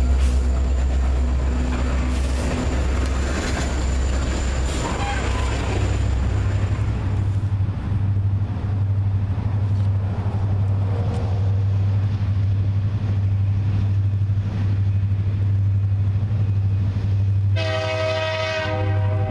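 Freight train's coal hopper cars rolling past, steel wheels rumbling on the rails. Then a steady low rumble from an approaching diesel locomotive, which sounds its horn once, for about a second and a half, near the end.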